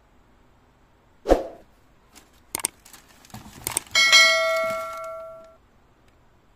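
Subscribe-button animation sound effects: a short swoosh about a second in, a few mouse-click taps, then a bell ding at about four seconds that rings out for over a second.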